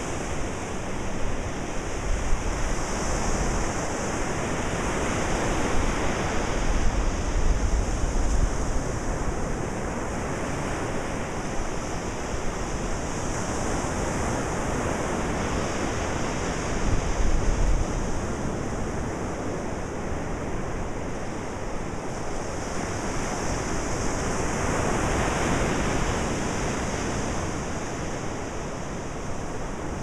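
Ocean surf: waves breaking and washing up the shore in a continuous hiss that swells and eases every several seconds, with a few deeper rumbles as larger waves break.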